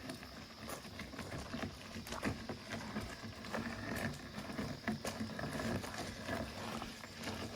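Irregular knocks and clatter of a cart loaded with firewood being eased down a slope, with footsteps.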